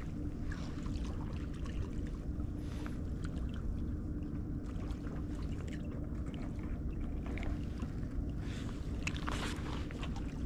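Steady low rumble of wind on the microphone, with a faint constant hum underneath and a few light handling clicks near the end.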